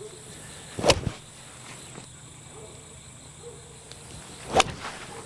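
Two sharp golf club strikes on the ball, iron shots about three and a half seconds apart.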